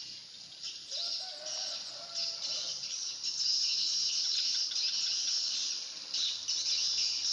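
Insects shrilling in a steady, pulsing high chorus, with a faint bird call held for a second or two about a second in.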